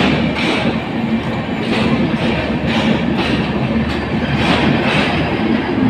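Bangladesh Railway passenger coaches rolling past at speed: a steady loud rumble, with the wheels clattering over the rail joints about twice a second.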